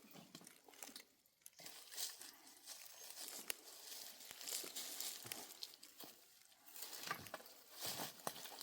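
Rustling and crunching, like dry material being handled or stepped on, with scattered small clicks and knocks; louder near the end.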